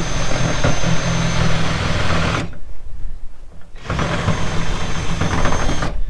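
Cordless drill running against a corrugated-iron wall in two runs of about two seconds each, with a steady whine and a short pause between them.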